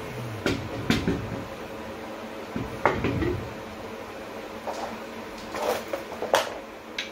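Irregular metallic clinks and knocks, about eight of them, the loudest about one, three and six seconds in, from a car wheel and its lug nuts being fitted back onto the front hub by hand.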